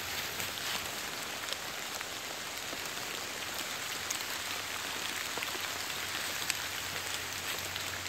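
Light rain pattering steadily on wet fallen leaves, with scattered small drip ticks.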